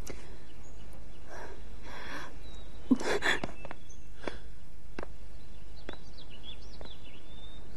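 Steady outdoor background noise with a constant low hum, a brief breathy sound about three seconds in, and faint high bird chirps near the end.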